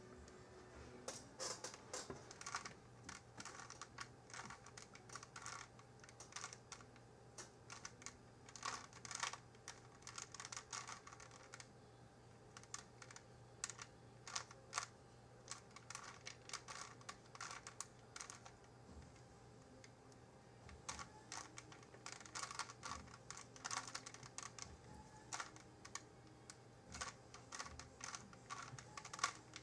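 Plastic Rubik's Cube being solved by hand, its layers turned in quick runs: a faint, rapid clatter of clicks with brief pauses between runs.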